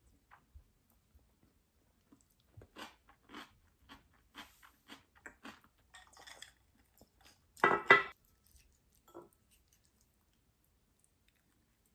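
Close-up crunching of a homemade cucumber pickle slice being bitten and chewed, short crunches about two a second, with a much louder double crunch about two-thirds of the way through.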